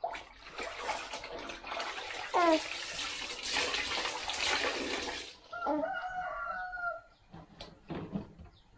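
Water pouring and splashing for about five seconds, then a rooster crows once.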